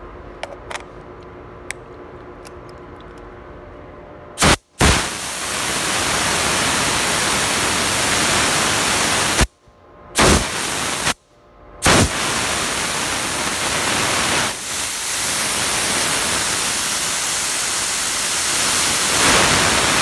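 SATA 4000B HVLP spray gun hissing as its trigger is pulled, atomizing denatured alcohol with compressed air. After a few faint clicks, the hiss comes in about four seconds in as a quick blip, then a burst of about five seconds, a one-second burst and a long burst of about nine seconds, each cutting off sharply.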